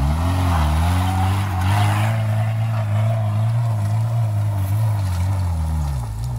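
Suzuki Vitara 4x4's engine held at steady high revs under load as it climbs a steep dirt hill, with a rushing noise over it. The pitch dips briefly just after the start and drops near the end.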